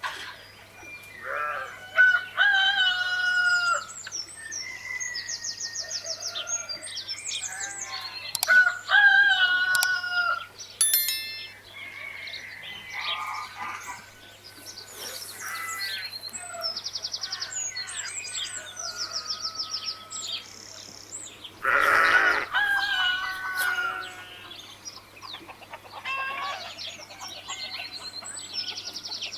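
Farmyard chickens crowing and clucking, mixed with small birds chirping in rapid high trills, over a steady low hum. One louder crow comes about three quarters of the way through.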